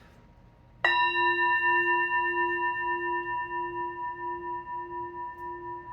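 Small brass Tibetan singing bowl struck once with a mallet about a second in, then ringing on with several overtones, its lowest tone wavering about twice a second.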